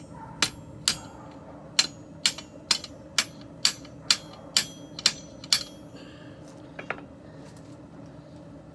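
Blacksmith's hammer striking steel on an anvil while forging a messer blade: about eleven ringing blows at roughly two a second, then a quick double tap near the end.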